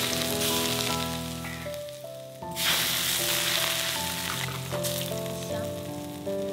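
Hot oil poured over dried chillies, minced garlic and scallions on a bowl of pickled fish, sizzling fiercely in two bursts: the first dies away about two seconds in, and a second, louder one starts about halfway through and fades. Soft background music plays underneath.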